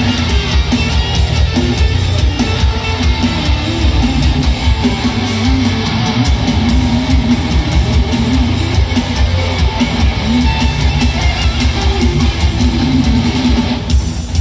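Heavy metal band playing live, with electric guitars over drums, loud and steady, heard from the audience.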